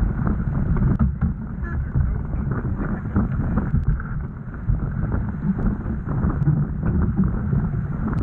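Wind buffeting the microphone, with water rushing along the hull of a Laser Vago sailing dinghy under way; the low wind rumble is the loudest part.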